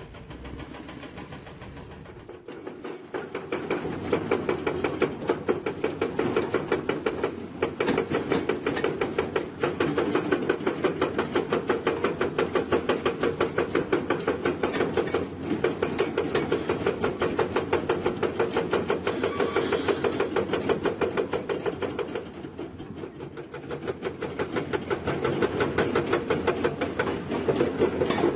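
Excavator at work: a diesel engine running under a fast, even mechanical clatter that picks up about three seconds in and dips briefly near the end.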